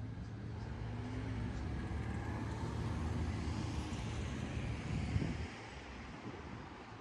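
Cars driving past on the street: a low engine and tyre rumble that builds, then falls away sharply about five and a half seconds in.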